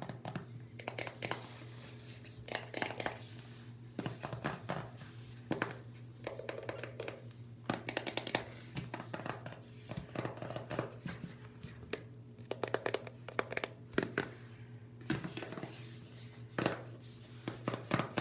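Fingernails tapping and scratching on a cardboard iPhone box: quick runs of light, sharp clicks with short pauses between them.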